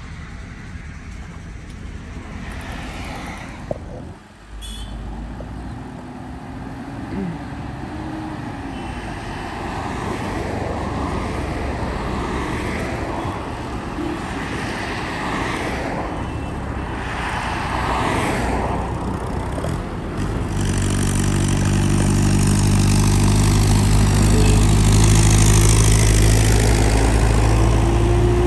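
Road traffic passing, then, from about two-thirds of the way in, a Tata 4225 truck's diesel engine pulling away and approaching, growing louder with a steady low engine drone.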